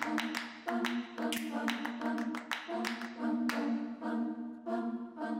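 Closing music: a run of short, sharply attacked notes repeating several times a second.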